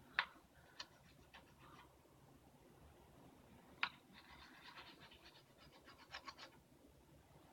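Faint scratching of a plastic tuning peg being rubbed on a plastic cutting board. There is a sharp click just after the start and another near four seconds, then a run of quick scratchy ticks until about six and a half seconds.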